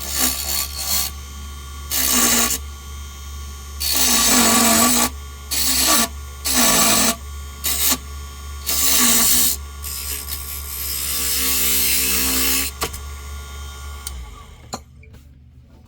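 Small wood lathe running with a steady hum as a tool is pressed against the spinning pine lure blank in repeated scraping passes, one of them longer. The motor hum cuts out near the end as the lathe is switched off.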